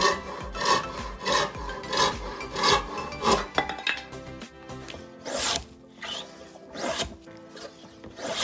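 Wooden frame saw cutting a hardwood strip in quick, even rasping strokes, about three strokes every two seconds. After a short lull, a hand plane shaves a board in long strokes, about one every second and a half.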